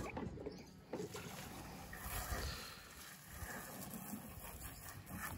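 Water lapping and splashing against the hull of a moored boat, with wind rumbling on the microphone and a couple of light knocks near the start.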